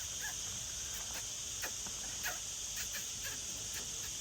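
Steady, high-pitched chorus of insects, with scattered short chirps over it.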